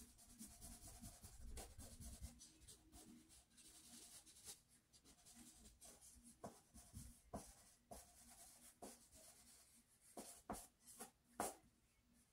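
Faint scratching of a drawing pencil on sketchbook paper as shading is laid in: short, uneven strokes, with a few sharper ones near the end.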